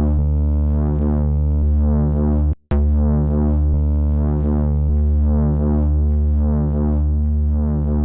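Native Instruments Monark software synth playing a sustained, looping bass line of square and sawtooth waveforms through Maschine's analog-mode overdrive distortion. The deep bass note holds steady while its upper tones swell brighter and fall back about once a second. It cuts out for a moment about two and a half seconds in, then starts again.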